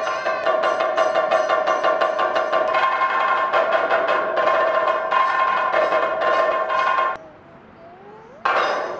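Percussion-led music, quick evenly spaced strokes over steady held tones, which cuts off suddenly about seven seconds in. A short loud burst of sound follows near the end.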